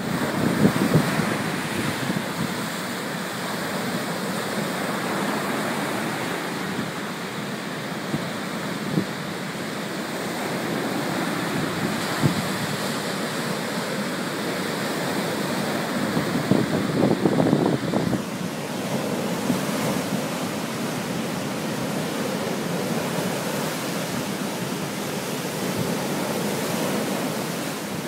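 Strong wind buffeting the microphone over the steady wash of surf on a beach, with heavier gusts at the start and again a little past halfway.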